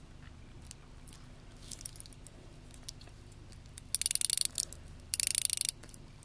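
Rotating diver's bezel of a Seiko Kinetic dive watch being turned with the fingers, ratcheting in two quick runs of rapid fine clicks about four and five seconds in, with a few faint single clicks before them.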